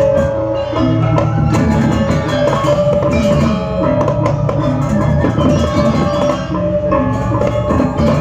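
Balinese gamelan ensemble playing a bebonangan-style piece: ringing bronze gong-chimes in a dense, fast-moving melody over a steady drum pulse.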